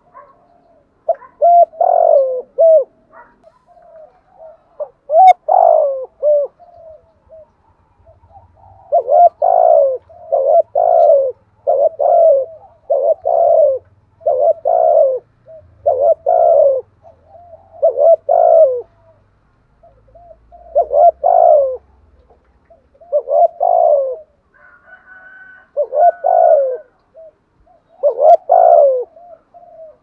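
Spotted dove cooing in a run of short repeated coos, about one a second at its fastest, with a few longer pauses between.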